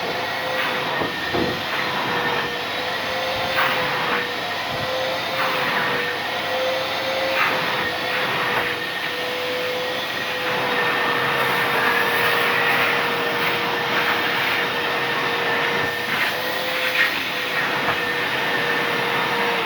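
Vacuum cleaner running steadily during sofa cleaning: a constant motor whine over a rushing airflow hiss, with scattered short knocks and scrapes as the nozzle works the upholstery.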